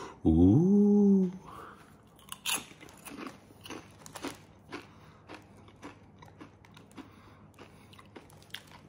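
A brief voiced vocal sound near the start, then crisp potato chips being bitten and chewed, with irregular crunches for several seconds.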